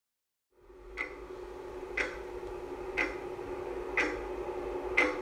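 Ticking at exactly one tick a second, like a clock, over a steady low hum; it starts after about half a second of silence.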